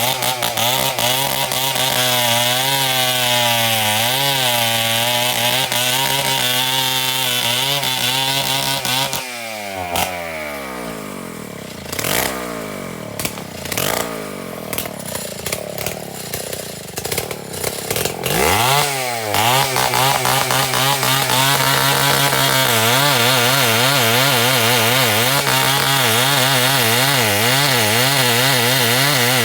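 Two-stroke chainsaw at full throttle with its pitch wavering as it cuts timber. About nine seconds in the throttle is released and the engine drops to idle for several seconds, with a few clicks and knocks. It then revs back up and cuts again at full throttle.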